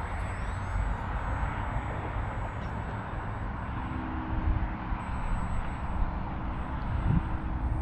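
Gusty wind buffeting the microphone: a rumble that rises and falls. A faint steady hum joins it about halfway through.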